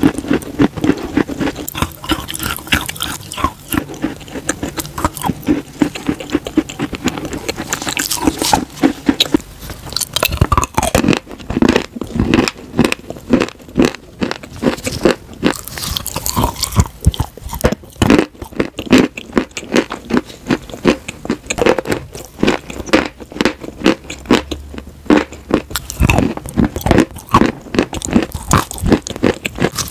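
A person biting and chewing chunks of chalk and clay right at the microphone: a dense run of sharp, crisp crunches.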